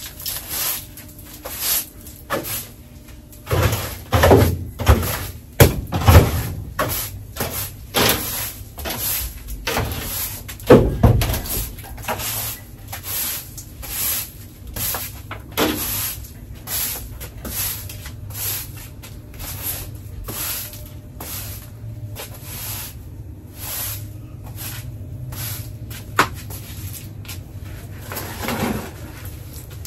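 A stiff-bristled broom sweeping a brick-paver floor: a steady run of short scraping strokes, about two a second. There are a few louder knocks and scrapes in the first dozen seconds.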